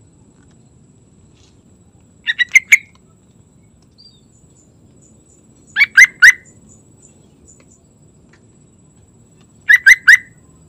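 Yellow-vented bulbul singing short phrases of three or four quick notes, three times at intervals of about three and a half seconds.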